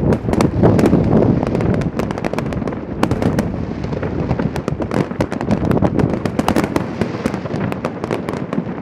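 Fireworks going off in a continuous barrage: dense, rapid crackling and popping over heavy low booms, without a break.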